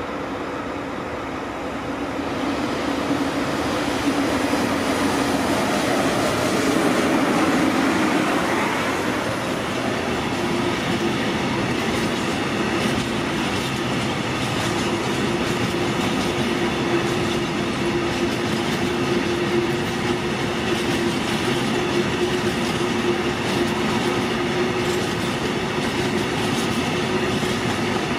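Container freight train behind an SNCF BB 27000 electric locomotive passing close by. It grows louder over the first few seconds as the locomotive goes past, then the wagons roll by in a steady rumble with a held tone and clickety-clack from the wheels.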